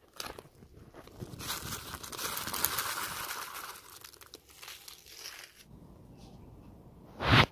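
Crinkling, rustling noise with scattered clicks for a few seconds, then one short loud bump near the end.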